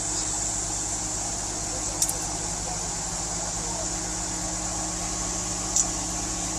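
A vehicle engine running steadily at low revs, with two short sharp clicks, about two seconds in and again near the end.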